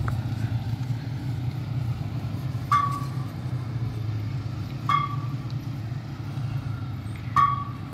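Steady low rumble of a motor vehicle running, with three short high chirps about two seconds apart.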